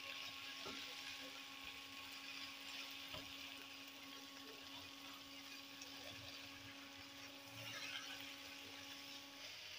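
Faint sizzling and spatula stirring as grated-carrot halwa is turned over in ghee in a nonstick pan, with a few soft scrapes. A steady low hum runs underneath and stops near the end.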